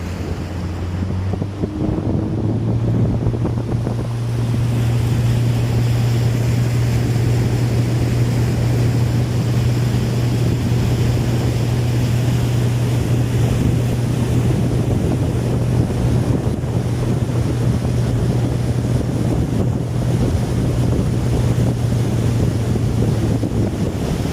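Small boat's engine running steadily under way, its low hum stepping up a little in pitch about two seconds in and then holding. Wind buffets the microphone, with sea noise alongside.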